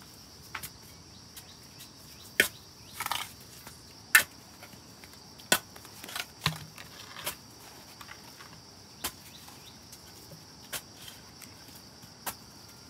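A dozen or so sharp, irregularly spaced knocks and taps, the loudest about four seconds in, with a short scraping rustle around three seconds in. A steady high insect drone runs behind them.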